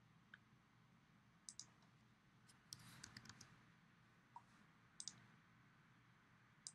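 Faint clicks of a computer mouse button, several coming in quick pairs like double-clicks, with a short run of clicks about three seconds in, over near silence.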